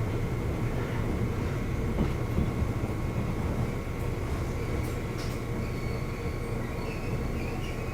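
JR East 211 series electric multiple unit motor car heard from inside while running: a steady low rumble of wheels and body with a constant whine from the externally fanned traction motors. This particular car is known for an abnormal noise from its motors.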